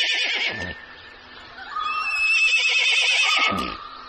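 Recorded horse whinny played by an augmented-reality animal app through a phone speaker. One whinny tails off about half a second in, and a second, longer whinny, wavering in pitch, follows shortly before the two-second mark.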